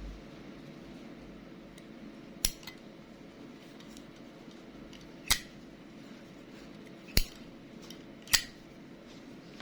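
Zippo windproof lighter handled with four sharp metallic clicks a few seconds apart, the kind of clack its hinged metal lid makes flipping open and snapping shut.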